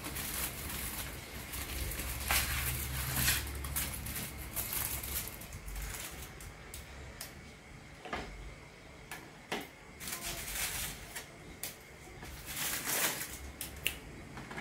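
Foil and paper wrapper of a chocolate bar crinkling and rustling in the hands as it is peeled open and the chocolate is broken off, with irregular crackles and a few louder crinkles.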